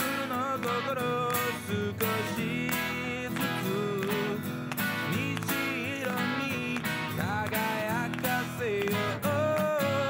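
Background music led by strummed acoustic guitar.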